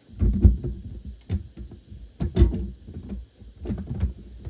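Irregular clicks and knocks of hands handling plastic Lego pieces close to the microphone, as a fallen piece is fitted back on; the loudest knocks come just after the start and about halfway.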